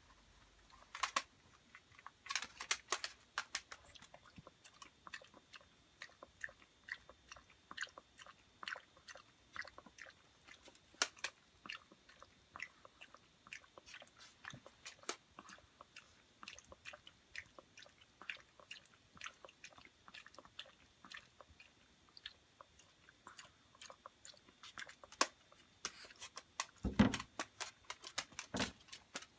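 Chihuahua chewing and crunching food in a long run of quick, irregular crunches, louder in clusters, with two duller knocks near the end.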